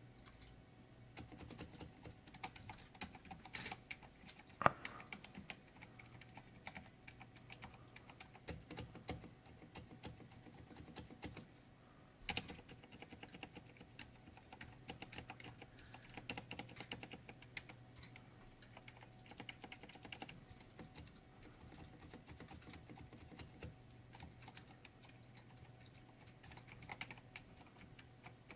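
Gentle typing on a tenkeyless Filco Silent mechanical keyboard: soft, quiet key presses in loose runs, with a sharper knock of a key bottoming out about five seconds in and again about twelve seconds in.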